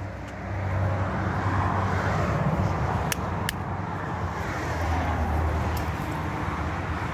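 Outdoor ambience of road traffic: a steady low rumble with a broad wash that swells about a second in, and two short clicks a little after three seconds in.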